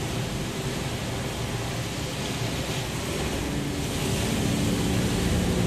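Heavy surf from a rough sea breaking on rocks, with wind: a steady wash of noise. A little under halfway through it grows slightly louder and a low steady hum joins in.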